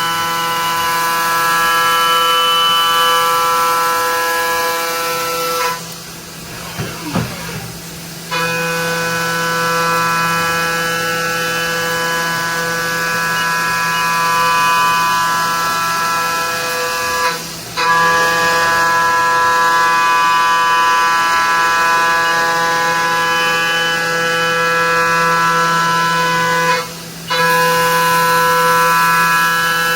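Haas VF-2SS CNC machining center running with a steady high-pitched whine. The whine drops out briefly three times: for about two seconds some six seconds in, then for moments near the middle and near the end.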